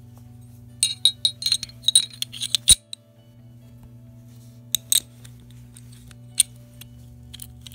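Metallic clicking and clinking of a Taurus 709 Slim 9mm pistol's slide, barrel and recoil spring being handled and fitted together: a quick run of clicks about a second in that ends in one sharp click, then a few single clicks.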